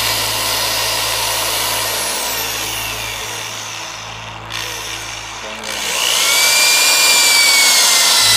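Power drill driving a screw through roofing tin into the wood framing, the motor whining, slowing and easing off about three seconds in, then spinning up again for a second run about six seconds in.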